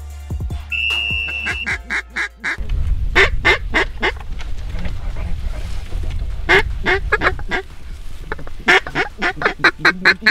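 Duck calls blown in runs of short quacks, several series one after another, with a steady high whistle note about a second in. From about two and a half seconds on, wind rumbles on the microphone underneath.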